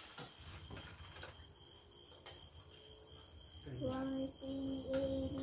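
Steady high chirring of crickets with a few light clicks. About four seconds in, a voice starts singing, holding steady notes.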